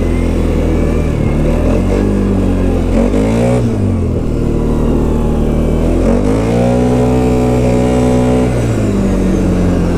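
Off-road bike's engine pulling through deep snow, revving up and easing off twice. The second time it holds high for a couple of seconds before dropping back.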